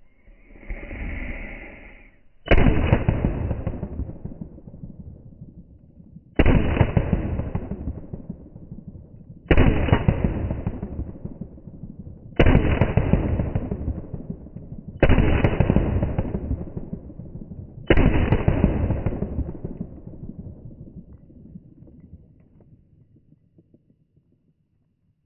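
Six shots from a Glock 17 Gen 5 9mm pistol, slowed down: each a sudden deep blast fading slowly over a few seconds, about three seconds apart. A short pitched tone comes before the first shot.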